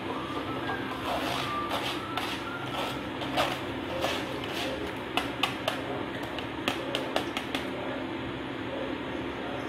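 Moong dal deep-frying in hot oil inside a steel mesh strainer: a steady sizzle with a settled froth, the sign that the dal has turned crisp and is ready to come out. A steel spoon clinks and taps against the strainer in a run of sharp clicks, most between the middle and near the end, as the dal is stirred and the strainer is lifted from the oil.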